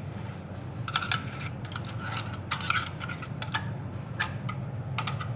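Metal clicks and a short rattle from a MAX HD-12N/24 heavy-duty stapler being handled while staples are loaded into its magazine: a pair of sharp clicks about a second in, a scraping rattle a little past the middle, then single clicks. A steady low hum runs underneath.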